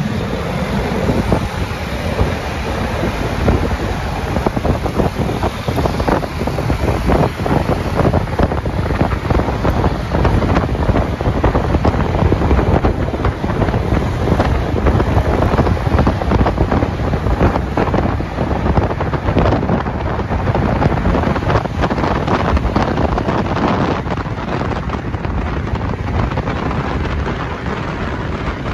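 Loud wind buffeting on the microphone of a moving motorcycle: a continuous rushing noise, heaviest in the low end, gusting unevenly throughout, with the motorcycle and surrounding traffic buried beneath it.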